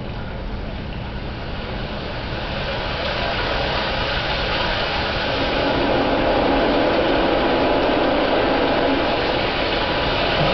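Film soundtrack playing over cinema speakers: a steady rushing noise that swells over the first six seconds or so, then holds.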